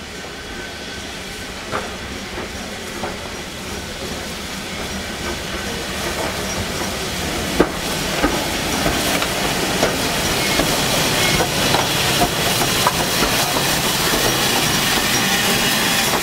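Steam-hauled train approaching and growing steadily louder, its wheels clicking over the rail joints, with a hiss of steam. The sharpest click comes about seven and a half seconds in.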